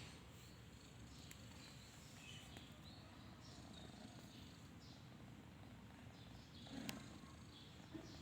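A sleeping cat snoring softly, a faint low rumble that goes on throughout, with one short click about seven seconds in.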